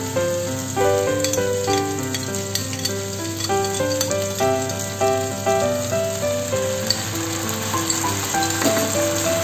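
Oil sizzling and crackling in a pan of frying pork-stuffed long beans. A cornstarch-and-water slurry goes in during the second half, with a spoon stirring at times. A light background melody of quick, stepped notes plays throughout.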